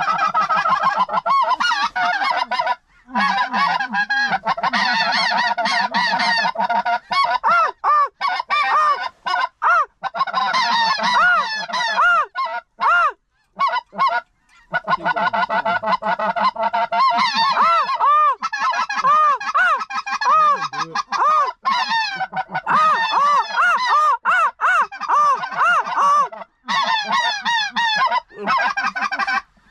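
Snow geese honking, many at once in a loud, dense, overlapping chorus of high calls. There are a few abrupt short breaks, around 3 seconds in, near the middle and near the end.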